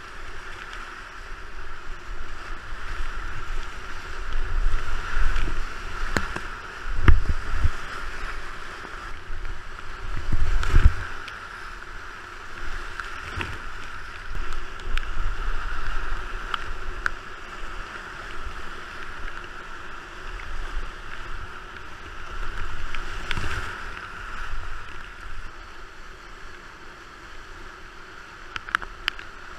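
Whitewater rapids rushing steadily around a kayak running them, with paddle strokes and water splashing against the boat and camera giving low thumps and sharp slaps, loudest about seven and eleven seconds in.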